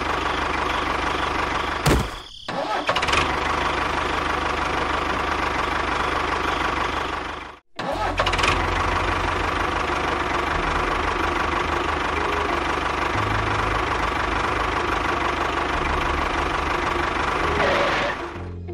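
An engine running steadily with a low, fast chugging beat. It breaks off briefly about two seconds in, cuts out suddenly near the middle and comes straight back.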